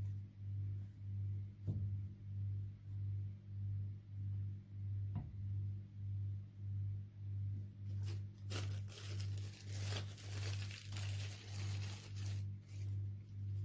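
Slime crackling and crinkling as it is squished by hand, for about four seconds from about eight seconds in. Under it, a low pulsing hum from background music, about two and a half pulses a second.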